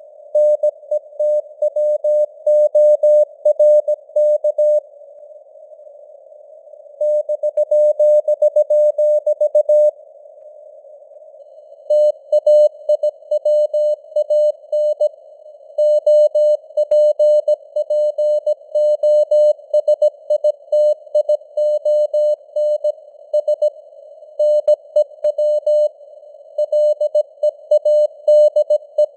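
Morse code at 17 words per minute, sent as a single tone of about 600 Hz keyed in dots and dashes over a narrow band of simulated radio hiss. The keying pauses briefly twice, about five and ten seconds in, between words.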